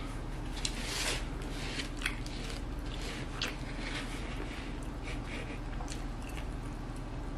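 Close-miked chewing of a tuna and pickle wrap: irregular wet mouth clicks and smacks over a steady low hum.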